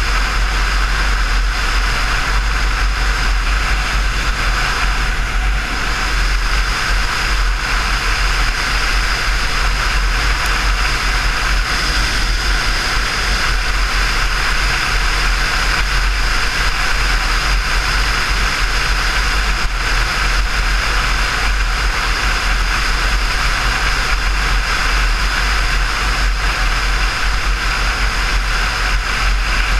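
Honda VTX1300's V-twin engine running steadily at cruising speed, mixed with steady wind rush over the handlebar-mounted camera's microphone.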